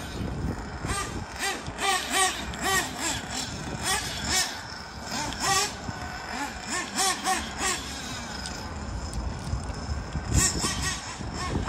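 Kyosho Inferno NEO ST 3.0 nitro RC car's glow engine buzzing, its pitch swooping up and down again and again as the throttle is worked on and off.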